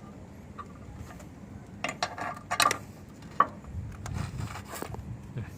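A few sharp clicks and light knocks of small hard parts being handled, the loudest a cluster about two to three seconds in and a single sharp click about three and a half seconds in.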